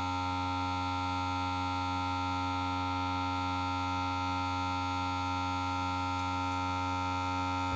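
Vacuum pump of a heated screen-separator plate running with a steady hum made of several even tones.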